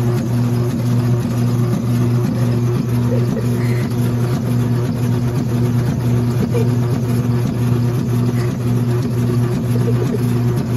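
Electric motor of a coin-operated kiddie-ride horse running under a rider, a steady low hum that pulses regularly as the horse rocks.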